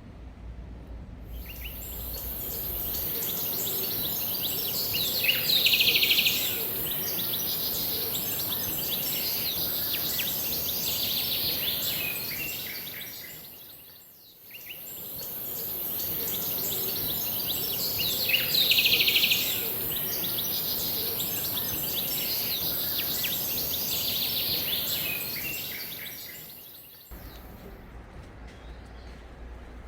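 Birdsong ambience: many birds chirping and calling over a steady high hiss. The same passage of about 13 seconds plays twice, each time fading in and out, like a looped nature-sound track.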